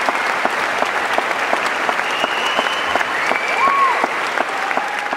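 Audience applauding, a dense patter of hand claps, with a few whistles rising above it.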